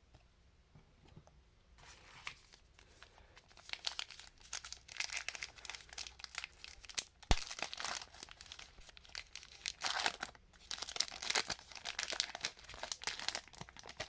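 A foil card-pack wrapper crinkling and tearing as it is opened by hand, starting about two seconds in and going on in spurts, with one sharp click about seven seconds in.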